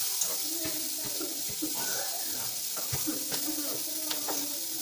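Kitchen tap running water into a sink, a steady hiss with a few light clicks of things being handled.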